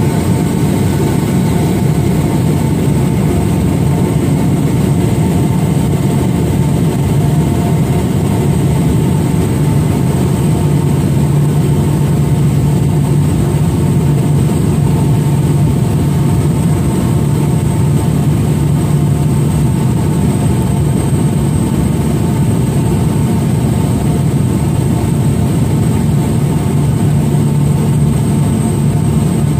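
Steady engine and propeller drone of a small MAF mission aircraft in flight, heard from inside the cabin, with a deep hum and a thin high whine running unchanged throughout.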